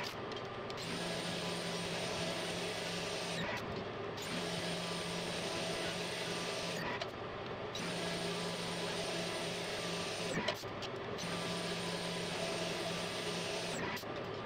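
Steady mechanical hiss with a low hum from machine-shop equipment, broken by short gaps about every three and a half seconds.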